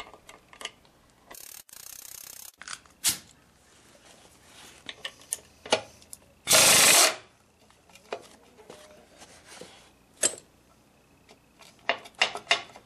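Metal tool clicks and clinks on the rusty bolts of a truck's front-axle brake backing plate as they are worked loose. A steady hiss runs about a second and a half in, and a louder half-second burst of rushing noise comes about six and a half seconds in. A quick cluster of clicks comes near the end.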